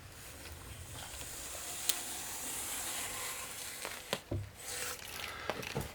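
A steady scratching hiss of a marking tool drawn along timber as lines are marked out for a slot, with a few light clicks and knocks of the tool and rule.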